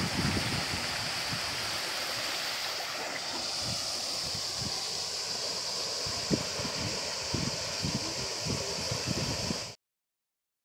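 Shallow mountain river running over rocks: a steady rush of water with scattered small low splashes, cutting off suddenly near the end.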